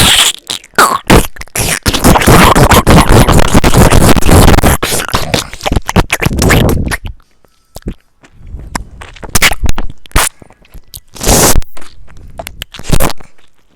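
A person making weird noises with the mouth and throat: a loud, rasping, scrape-like noise for about seven seconds, then short scattered pops and bursts.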